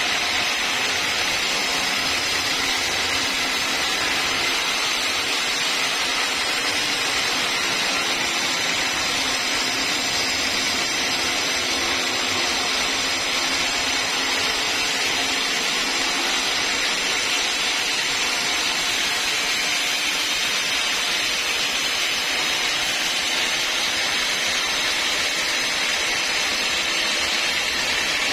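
Sawmill saw cutting a long, straight pass through a log: a steady, unbroken high-pitched hiss of blade through wood that keeps an even level throughout.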